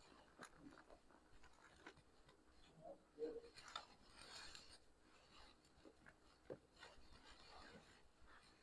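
Near silence: room tone with faint rustling and a few soft clicks.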